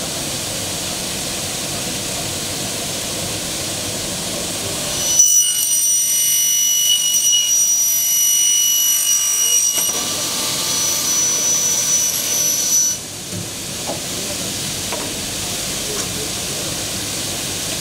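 Single-head uPVC profile cutting saw running and cutting through a white uPVC window profile: a high, steady whine with several ringing tones, starting about five seconds in and stopping abruptly about thirteen seconds in. A steady hiss runs underneath throughout.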